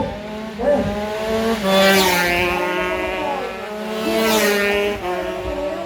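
Several racing motorcycle engines revving hard, their pitch rising and falling. Two bikes swell loud and fade as they pass close, about two and four seconds in.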